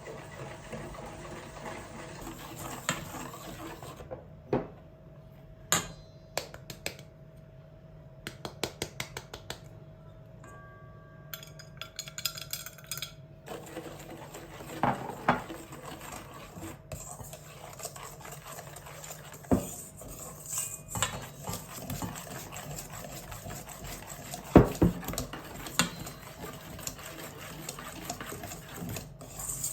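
Dishes and cutlery clinking and knocking, in scattered sharp strikes, over a steady low hum.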